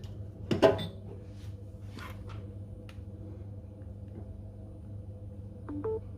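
Charging cable being plugged into a Samsung Galaxy's freshly cleaned charging port: a louder handling sound about half a second in and a few light clicks. A steady low electrical hum runs underneath.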